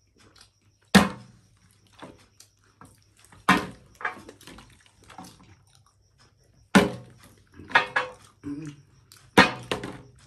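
Small, partly filled plastic Coca-Cola bottle being flipped and landing on a glass tabletop: four loud, sharp knocks about every two to three seconds, with fainter clatter between them.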